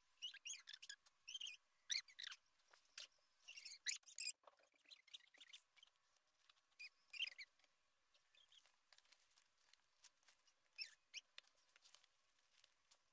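Pencil scratching on paper in short, quick strokes, faint. The strokes come in dense clusters over the first four seconds and again around seven and eleven seconds, with sparser strokes between.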